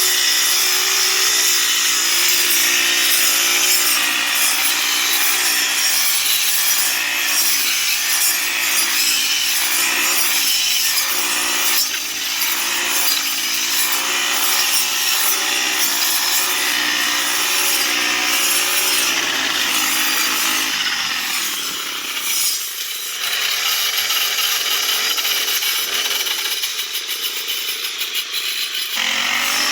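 Grass-cutting machine running: an engine hum under a steady, loud rasping cutting noise. The engine note fades out about twenty seconds in, while the cutting noise carries on, and it comes back near the end.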